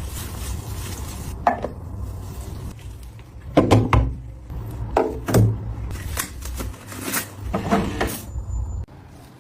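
Hard objects being handled and set down on a hard surface: a series of separate knocks and clinks with short ringing, over a low steady hum that cuts off near the end.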